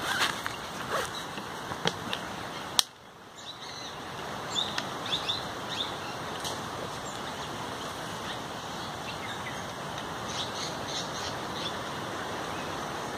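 Small birds giving short, high chirps in woodland over a steady background hiss. There are rustles and clicks from a backpack being handled and set on the ground in the first few seconds, and a sharp click about three seconds in.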